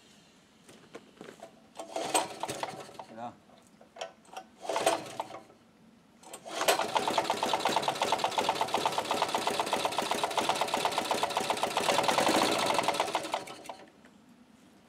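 Portable generator's engine running on producer gas from a homemade gasifier: a few brief coughs on the first start attempts, then it catches about six and a half seconds in, runs for about seven seconds and dies out.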